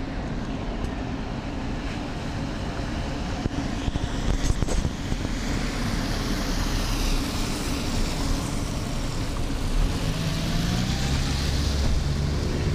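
Vintage museum trams rolling along a street behind a police escort car, with a steady low rumble of wheels and motors. A cluster of sharp clacks comes about four to five seconds in, and the rumble grows louder near the end with a faint rising whine as the column comes closer.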